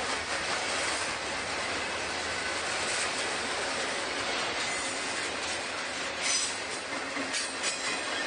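Freight train cars rolling past, a steady rumble and rattle of steel wheels on the rails with some wheel squeal and clacking over the rail joints.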